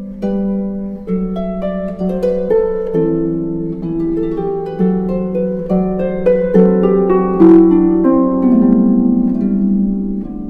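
Background music: a gentle melody of plucked notes over held lower chords.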